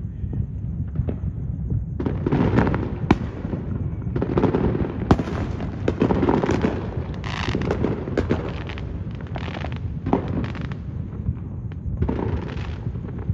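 Fireworks going off in a continuous barrage of booms, sharp pops and crackling bursts, over a constant low rumble.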